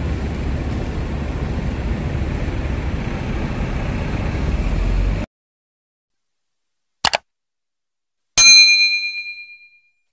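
Steady street ambience with traffic rumble, cut off abruptly after about five seconds. Then a single mouse-click sound effect, and a loud notification-bell ding that rings out over about a second and a half.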